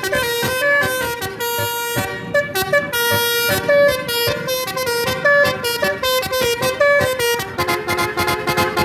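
Roof-mounted basuri telolet horn on a pickup truck playing a tune: a quick run of short, changing horn notes, giving way to a longer held chord near the end.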